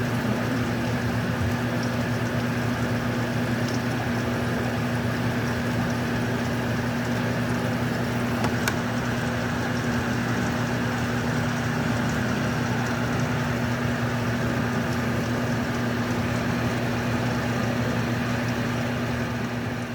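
Steady hiss of radio static from a weather radio receiver, with a low electrical hum under it.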